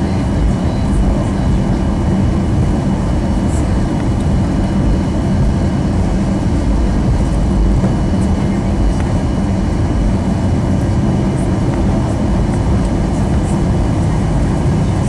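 Cabin noise of a Boeing 737 taxiing: a steady low rumble from the jet engines at taxi power and the aircraft rolling, with a faint steady high tone above it.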